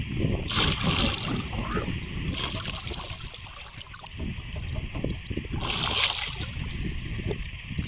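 Water splashing and sloshing in three short surges, about half a second in, near two and a half seconds, and near six seconds, over a steady low rumble of wind on the microphone.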